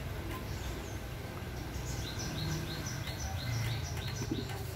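A small bird chirping: a quick run of short, high, slightly falling chirps, about three a second, starting about two seconds in, over a steady low background hum.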